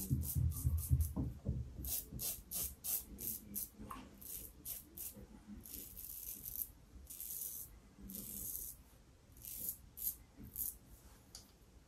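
Double-edge safety razor with a hybrid YATIP head (Yaqi SRC037 cap on a Fatip closed comb, Astra Stainless blade) scraping through stubble and lather in short strokes, a few strokes a second with brief pauses. Some low knocks come in the first second and a half.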